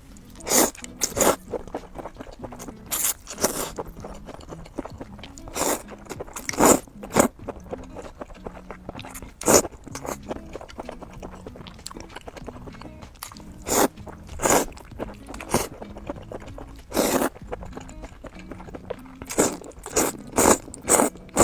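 Close-miked eating: crisp food bitten and chewed, with sharp crunches at an irregular pace, roughly one a second in clusters, and quieter chewing clicks between them.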